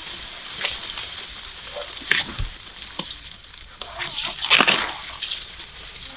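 Corn leaves and husks rustling and crackling in irregular bursts, loudest about two thirds of the way in, over a steady high-pitched drone.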